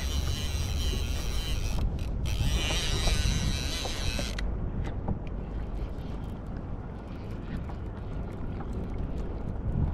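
Fishing reel being cranked to bring in a hooked fish, with a steady whine of the gears. It stops suddenly about four and a half seconds in, leaving faint scattered clicks.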